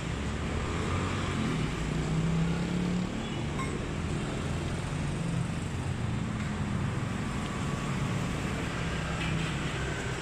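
Steady low rumble of street traffic, engine hum rising and falling as vehicles pass.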